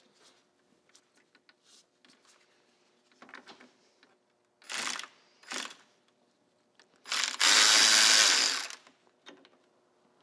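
Cordless power driver spinning a socket on an extension to run out a fastener in the engine bay: two short bursts about five seconds in, then a longer run of about a second and a half near the end. Light clicks and tool handling between the runs.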